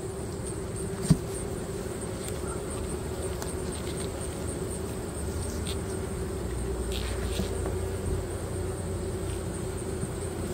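Honey bees buzzing in a steady hum over an open hive box full of frames. A single sharp knock about a second in.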